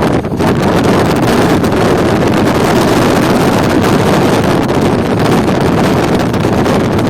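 Intercity express passenger train running at speed: a loud, steady rumble of the coaches on the track, with wind buffeting the microphone.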